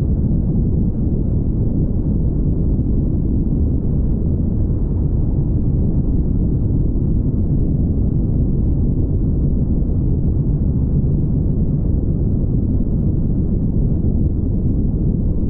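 Steady low rumble of tyre and wind noise from a car cruising along a highway.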